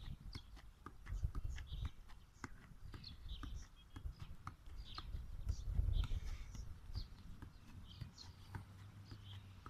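Football being juggled: irregular soft taps of the ball against foot and knee, over an uneven low rumble.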